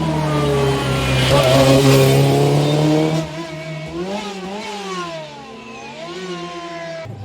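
Rally car engine at high revs, loud and steady as the car goes by for about three seconds. It then drops in level, and the revs rise and fall several times as the car drives on through gearshifts, until the sound cuts off abruptly near the end.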